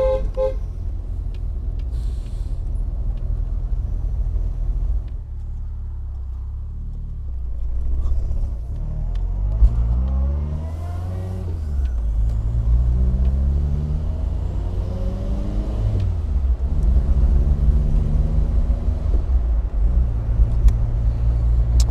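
Car engine and road rumble while driving off, the engine note rising three times in a row as it pulls up through the gears, then running steady.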